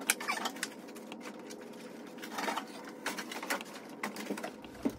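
Plastic dashboard of a 2003 Mustang Cobra being worked into place, knocking and scraping against the car's body, with scattered irregular clicks and knocks over a steady low hum.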